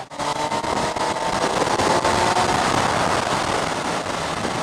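Kawasaki Z1000SX's inline-four engine pulling along, its pitch slowly rising over the first couple of seconds, on a new engine being run in. Heavy wind rush over the helmet-mounted microphone grows and covers the engine from about two seconds in.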